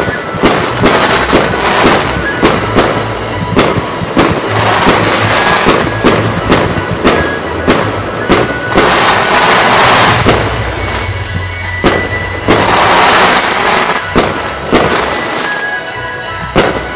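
Fireworks display: a rapid series of sharp bangs from bursting aerial shells. Four times a falling whistle leads into a spell of dense crackling. Music plays underneath.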